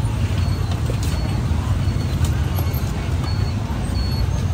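Steady low rumble of street traffic, with a few faint knocks over it.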